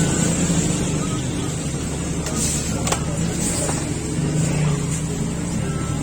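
City street traffic: cars running past with a steady engine hum and road noise, and a few brief clicks and knocks partway through.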